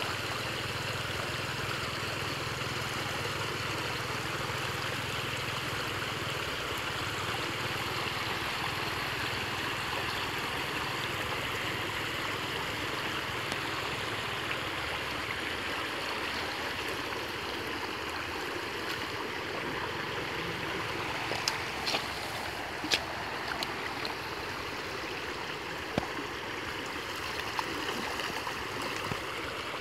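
Creek water flowing fast and steadily around a bamboo fish trap and a man's legs as it pours through the gap, with a few sharp knocks about two-thirds of the way in.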